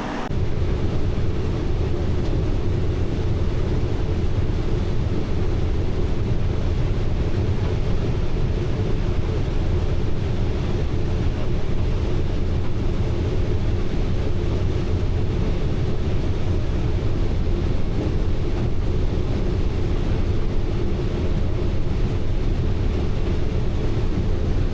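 Combine harvester running steadily while harvesting corn: an even, unchanging machine drone with a strong low hum.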